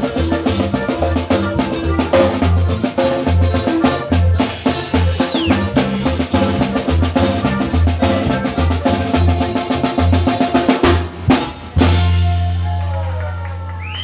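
Norteño-style band music with a drum kit and a pulsing bass line, in a quick zapateado rhythm. About twelve seconds in it ends on a held final chord that slowly fades.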